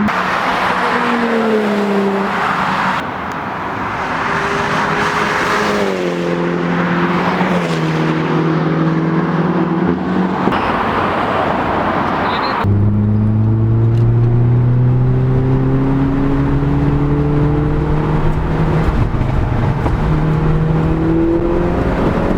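Car engine pulling through the gears. Its pitch climbs and drops back with each upshift, under heavy rushing road and wind noise. A little over halfway through, the rushing noise falls away suddenly and a deeper, steady engine drone takes over, slowly rising in pitch.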